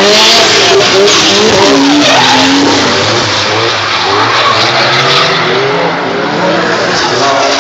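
Drift cars' engines revving up and down, with tyres squealing as the cars slide sideways around the track in a continuous loud din.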